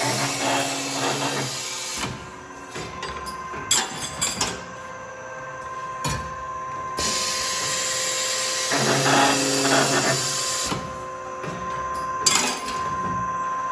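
Scotchman CPO315 RFA automatic cold saw cycling through cuts on 3/8-inch solid steel rod: a steady machine whine throughout, two long stretches of loud hissing cutting noise of about four seconds each, and sharp metallic knocks between them, about four seconds in and again near the end.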